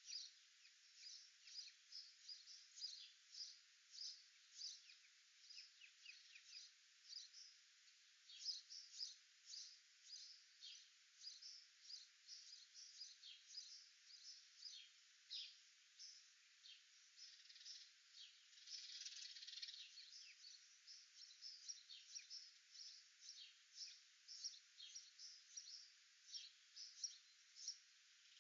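Faint small-bird chirping: many short high notes, a few a second, growing denser for a moment just before twenty seconds in.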